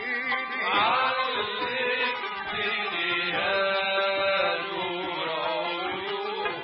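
Arabic song: a male voice sings a melismatic line, sliding up about a second in and holding long notes, over instrumental accompaniment.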